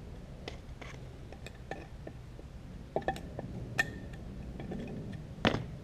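Metal brake parts of an IH 1066 tractor, the adjuster tubes and brake housing, clinking and knocking as they are handled on a workbench: scattered small clicks and taps, one brief ringing clink, and a louder knock near the end.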